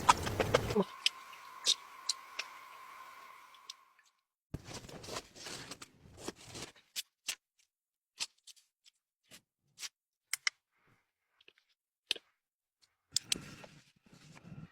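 Scattered light clicks and short rustles of small objects being handled, with near-silent gaps between them. A faint steady tone fades away in the first few seconds.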